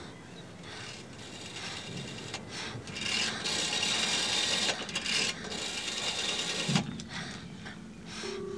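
Telephone-box rotary dial turned and whirring back, digit after digit, in a series of rasping runs with short gaps. Near the end the double burr of a British ringing tone begins: the call is going through.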